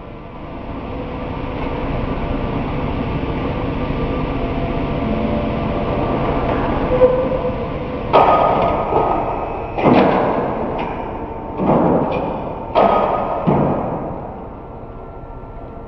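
Bonacin Pinta cabinet case clamp running as its press beam and side arms move in, a steady mechanical run. From about halfway through, a series of sharp clunks, each trailing off over a second or so, as the clamping pads close on the cabinet carcass.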